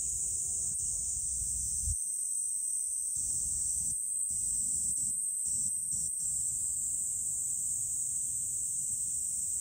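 Insects droning steadily in a high, even buzz, like a summer insect chorus from the surrounding trees. A low rumble sits underneath and cuts out briefly a few times near the middle.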